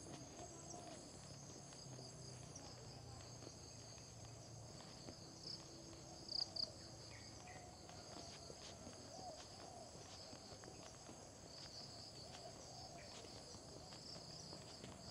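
Steady, high-pitched chorus of insects in tropical vegetation, with two short, louder chirps about six seconds in.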